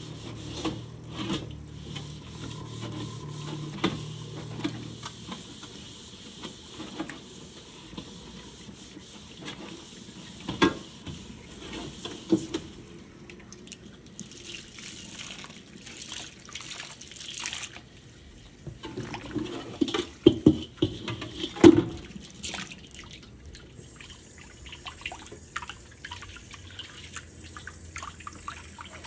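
Tap water running and splashing into a rusting steel wok in a stainless steel sink while it is scrubbed with a sponge. A few sharp metal clunks stand out, the loudest several in a row about two-thirds of the way through.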